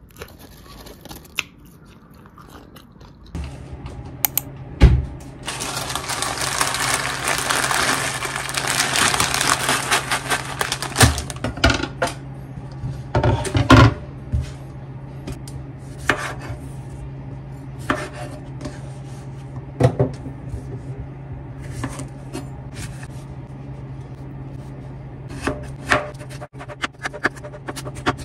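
Kitchen-knife work on a wooden cutting board: a cucumber is handled and knocked on the board, then sliced, with a run of quick knife chops against the board near the end. Under it runs a steady low hum, and a loud hiss fills several seconds in the first half.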